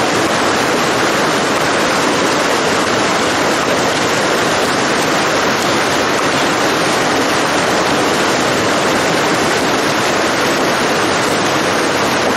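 Forest stream rushing over rocks close by, a loud, steady wash of water.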